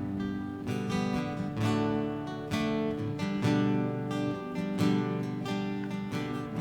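Acoustic guitar strumming chords, played softly as instrumental music.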